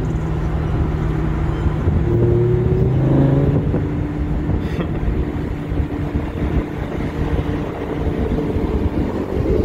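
Lamborghini convertible driving on the road, its engine running steadily under way over tyre and road rumble, heard with the roof open. The engine note shifts pitch a couple of times in the first few seconds.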